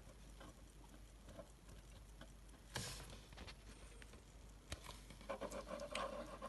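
Faint handling sounds of a small metal pocket watch being set up as a desk clock: scattered light clicks and a brief rustle about three seconds in.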